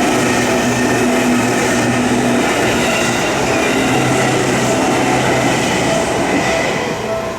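Seibu Railway train passing over a level crossing with a steady, loud rumble of wheels and running gear that begins to fade about seven seconds in. Through it the crossing's warning bell rings in short repeated tones.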